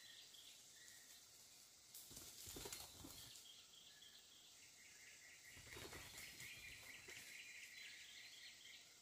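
Faint forest ambience: a steady high insect hiss with scattered small chirps, and a quick run of repeated chirps in the second half. Two spells of rustling, about two seconds in and again near six seconds.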